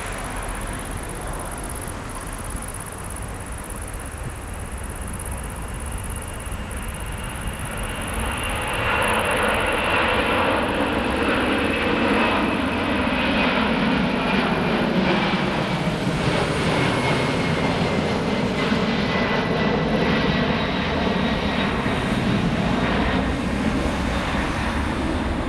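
Jet engines of a McDonnell Douglas MD-11 trijet at takeoff power on the climb-out. The engine noise grows louder about a third of the way in as the aircraft comes overhead, with a high fan whine that slowly falls in pitch as it passes.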